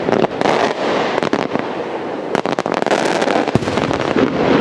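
Maltese beraq aerial firework shells going off: a dense, continuous crackle of many small pops, with several sharper bangs standing out from it.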